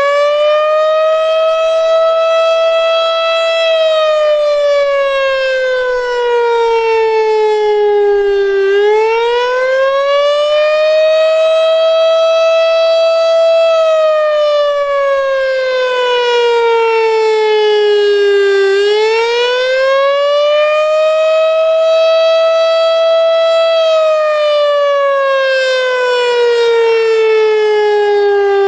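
Federal Signal STH-10 electromechanical outdoor warning siren sounding the attack signal, very loud. Its wail rises over a few seconds, holds briefly, then slowly falls, once about every ten seconds, three times over.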